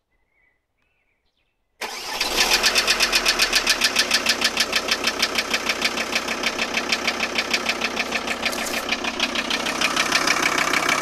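VW T4's 2.5 TDI five-cylinder diesel (AXG engine) starting abruptly after a couple of seconds of quiet, then idling with a loud, rhythmic clatter pulsing about five times a second: the rattling on starting that the owner is asking about.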